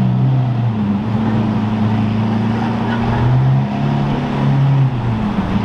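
Lamborghini Aventador's V12 engine running at low revs as the car drives off in traffic; its low note steps down, then up, then down again.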